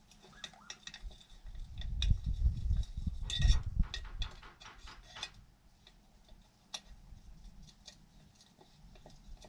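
Hand tools and small chainsaw parts being handled during the muffler repair: many short clicks and light knocks, with a stretch of heavier rumbling knocks about two to four seconds in.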